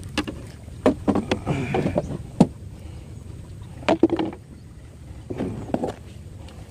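Scattered sharp clicks and knocks in small clusters, a few of them loud, over a low steady rumble: handling noise from tying a fishing line to a swivel and hook on a wooden boat.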